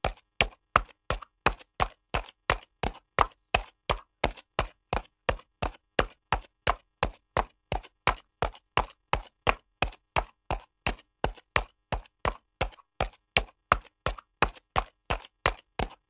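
Horse trotting: its hoofbeats strike in an even, steady clip-clop, about three a second.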